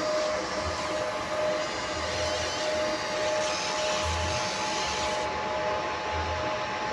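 CNC engraving machine running: a steady whirring hiss with a constant high whine, and a low hum that pulses on and off every second or so.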